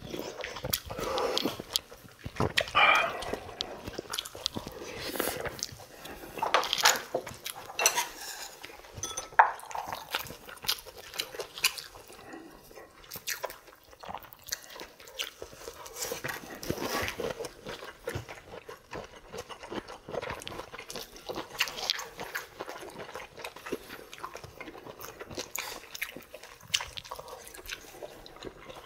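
Close-miked eating: chewing and biting food, with sips of soup and short clicks of spoon and chopsticks against ceramic bowls.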